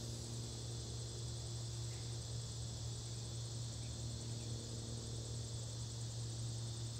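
Quiet outdoor ambience in summer woodland: a steady high hiss and a low, even hum, with no distinct event.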